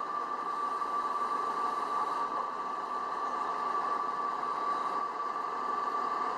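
Wheel loaders running steadily, a constant mechanical noise with a steady high whine through it.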